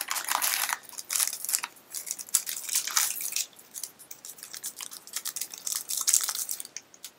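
Packaging crinkling and tearing as a mystery pin is unwrapped by hand, in a run of uneven rustling bursts that die away near the end.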